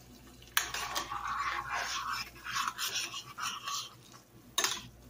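A spoon stirring and scraping melting butter and seasoning in a pot, an irregular rustling scrape, then a sharp clack near the end.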